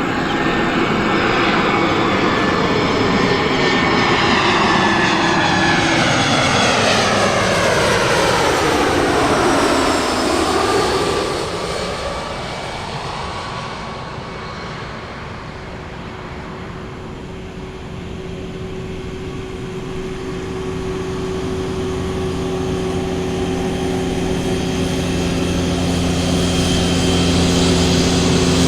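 Airliner passing close by, loud for the first ten seconds with a sweeping whine that falls in pitch and then turns upward as it goes over, then fading away. Near the end a steady low engine hum grows louder.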